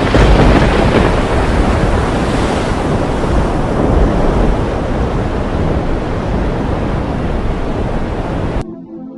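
Loud, steady rushing noise with a heavy low rumble, like wind or surf on a microphone, that cuts off abruptly near the end; soft sustained music follows.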